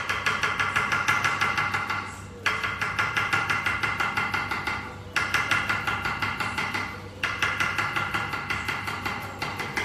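Kitchen knife rapidly chopping red peppers on a wooden cutting board: fast, even strokes, several a second, in four runs with brief pauses between them.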